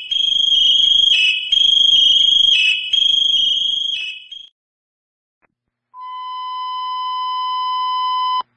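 High-pitched electronic fire alarm sounding in three pulses of about a second each, the pitch stepping down at the end of each pulse. After a pause, a steady, lower alert tone swells for about two and a half seconds and cuts off suddenly, as at the start of a fire dispatch radio call.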